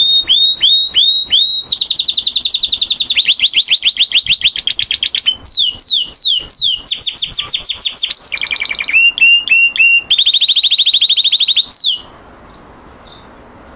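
Male canary singing: a long run of rapid trills, each phrase a fast repeat of one high note before switching to a new one, stopping near the end.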